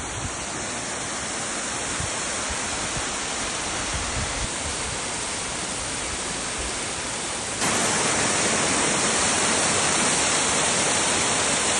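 Rushing water from a mountain stream, a steady, even hiss-like rush that gets suddenly louder about seven and a half seconds in, with a few faint low thumps early on.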